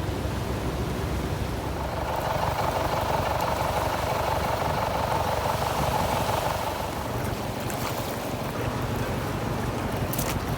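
Sea surf and wind buffeting the microphone, a steady rushing noise that swells for a few seconds in the middle.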